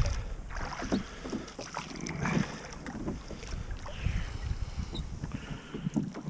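Small boat being rowed with oars: the oars dip and splash and knock in their oarlocks at irregular moments, with wind rumbling on the microphone.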